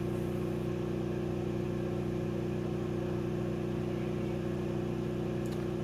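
Motor-driven generator rotor carrying ferrite rings and magnets, spinning steadily with a constant hum and one strong steady tone. Its pickup coil is open-circuited, so it is running without load.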